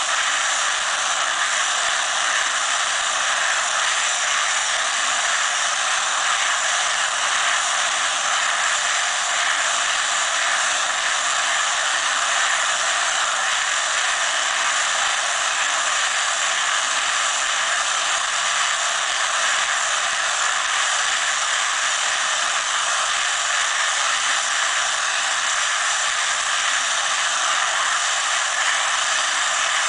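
Tractor-mounted bale wrapper running off a tractor, turning a round bale of haylage as it wraps it in stretch film: a steady, even mechanical noise with no distinct knocks or beats.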